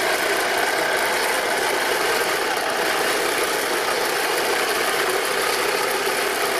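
Heng Long Challenger 2 1/16 RC tank running across grass on its metal tracks, giving a steady engine-like running sound that holds an even level throughout.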